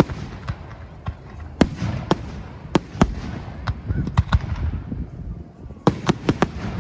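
Fireworks going off: an irregular run of sharp bangs and crackles, with several quick clusters of reports.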